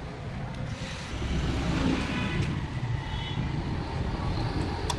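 Steady low rumble of motor vehicles running, with a sharp click near the end.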